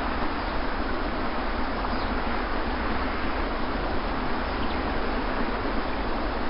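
Sea surf washing on a beach: a steady rush of water noise with a low rumble beneath and no single wave standing out.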